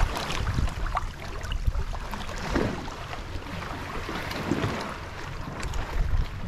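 Shallow seawater sloshing and lapping around a snorkeler working along a gill net, with a few small splashes and a low, uneven rumble of water movement.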